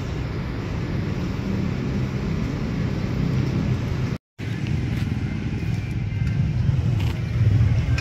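Steady low rumble of a running vehicle or road traffic, broken by a brief cut to silence about four seconds in.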